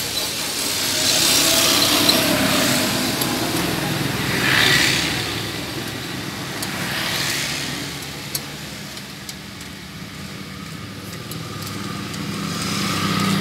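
Motor vehicles passing by, several rising and fading swells of traffic noise over a steady low hum, with a few light clicks.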